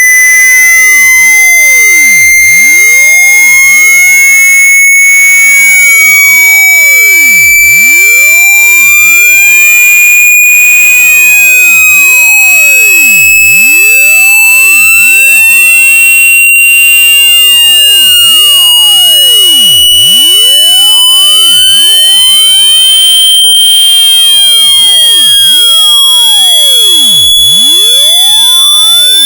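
Hearing-test sine tone sweeping slowly and steadily upward in pitch, a single high, loud pure tone climbing by nearly an octave.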